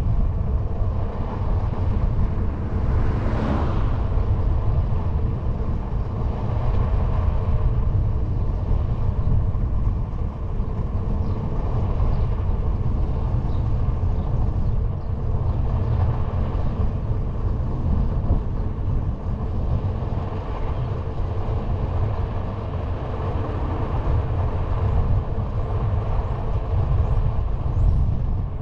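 Steady wind rumble on the microphone of a moving bicycle, with the hum of its knobby fat tyre rolling on asphalt. A short swell of noise comes about three and a half seconds in.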